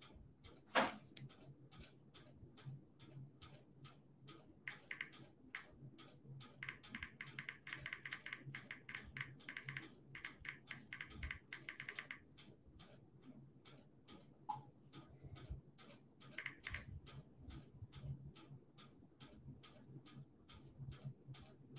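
Faint typing on a computer keyboard, a steady run of small clicks.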